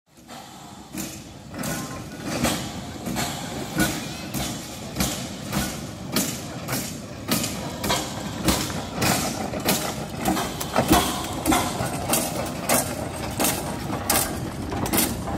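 Trevithick 1802 replica single-cylinder steam locomotive running under steam, its exhaust chuffing about twice a second, the beats quickening slightly as it works.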